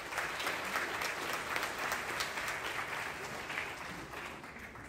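Audience applauding, with many separate hand claps, dying away near the end.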